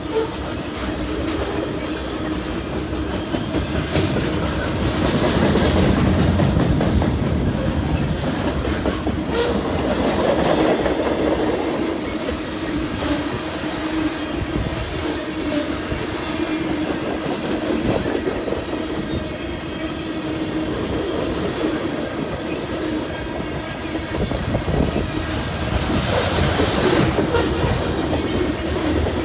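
Manifest freight train's cars rolling past at close range: a steady rumble of steel wheels on rail with clicks of wheels over rail joints and a steady low hum underneath. It swells louder about five seconds in and again near the end.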